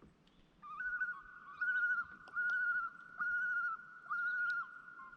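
Common loon giving its tremolo call: a run of about five quavering, pitched phrases strung close together, tapering off near the end.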